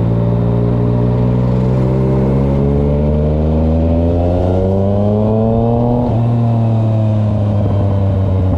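Yamaha MT-09's three-cylinder engine pulling through a gear, its pitch climbing slowly for about six seconds, then dropping at a gear change and holding steady.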